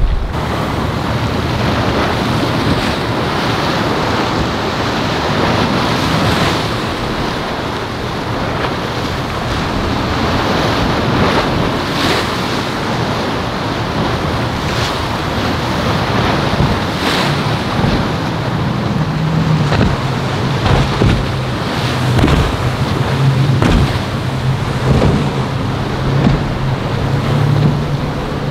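Waves breaking and washing in a rough inlet, with wind buffeting the microphone. From about two-thirds of the way in, a boat's engine drones steadily underneath the surf.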